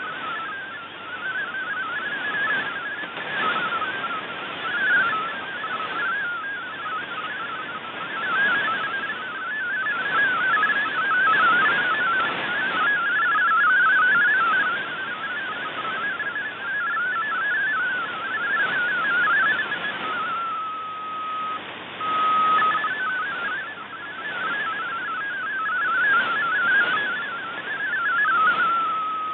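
MFSK32 digital text transmission received on shortwave: a fast warble of rapidly hopping tones over hiss and fading static. About 20 seconds in and again near the end, the warble settles into a steady single tone that breaks on and off.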